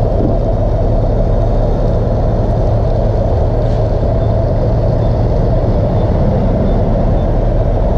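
Gasoline running from a pump nozzle into a motorcycle's fuel tank as the tank fills, over a loud, steady low rumble.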